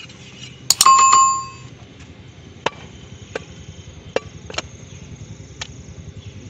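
Butcher's cleaver working goat meat on a wooden log block. About a second in there is a sharp metallic clank that rings for under a second, and after it come about five separate chopping knocks spaced a second or so apart.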